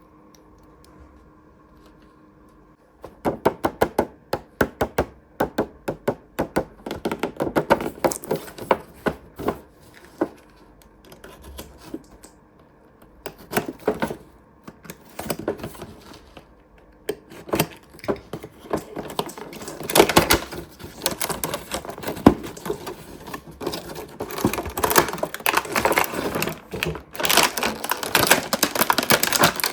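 Small plastic toy pieces being handled and set down, with rapid clicks, taps and rattles. The handling starts about three seconds in and grows busier and brighter in the second half.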